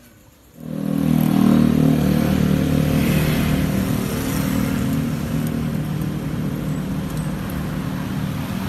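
Street traffic: motor scooter engines running as they ride past close by, with cars, loud and steady. It starts abruptly about half a second in.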